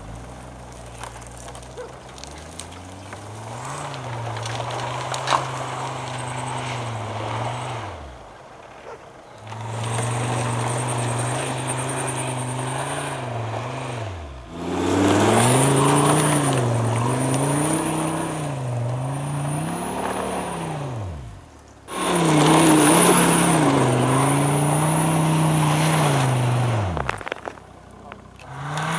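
Jeep Grand Cherokee's engine revving under load as it climbs a steep slope off-road, the revs swinging up and down again and again as the throttle is worked. The sound cuts out and comes back several times, loudest in the second half.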